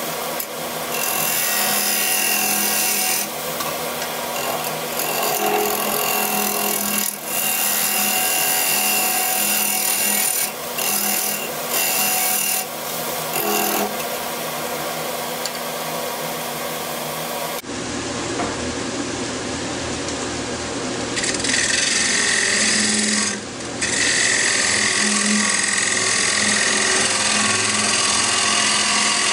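Wood lathe spinning a Siberian elm and red resin bowl while a steel turning tool cuts against it, a continuous scraping over the steady hum of the lathe. The cutting breaks off briefly a few times as the tool is lifted.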